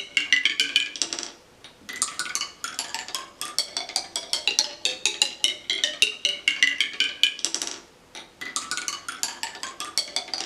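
Marbles dropping down a musical marble tree, striking its tuned tone plates in quick succession to make fast runs of short pitched notes. The runs pause briefly about a second in and again near the end, then start again.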